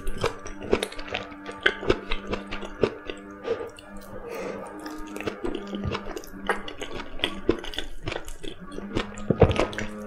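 Close-up eating sounds: soft, wet chewing of cooked kabocha squash and many short clicks from wooden chopsticks, over quiet background music with steady held tones.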